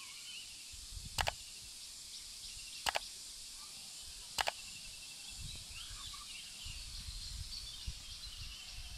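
Outdoor ambience of birds chirping over a steady high hiss. Three sharp double mouse-clicks come about 1, 3 and 4.5 seconds in, from a subscribe-button animation. A low rumble rises in the second half.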